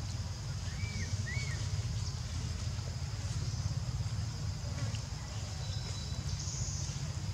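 Outdoor ambience: a steady low rumble under a constant high insect buzz, with two short rising-and-falling chirping calls about a second in.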